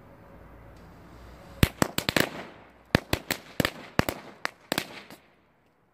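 Firecrackers going off on the ground in a rapid, irregular string of about fifteen sharp bangs, starting about a second and a half in and stopping shortly before the end.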